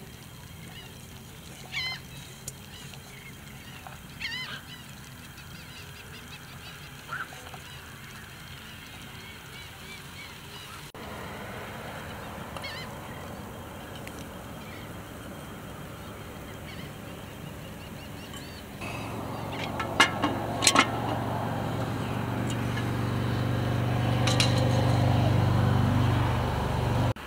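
A few short bird calls, then a louder steady low hum with several sharp metallic clanks from a cast-iron Dutch oven, about three-quarters of the way through.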